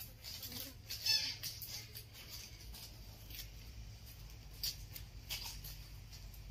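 Dry coconut palm fronds faintly rustling and crackling in scattered short crackles as they are plaited and tied into a thatch panel, with a brief high chirp about a second in.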